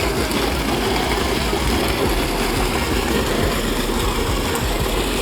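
Farm tube well running: a steady engine-driven pump drone with rushing water, unbroken and fairly loud.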